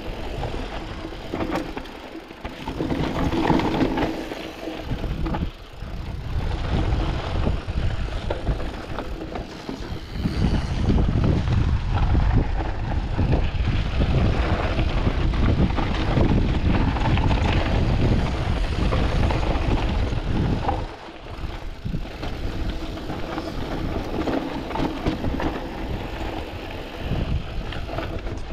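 Canyon Spectral AL 6.0 full-suspension mountain bike descending a rocky, dusty trail: tyres rolling and crunching over loose rocks and gravel, with the bike rattling and clattering over the bumps. It is loudest and heaviest in the middle stretch, from about ten to twenty seconds in.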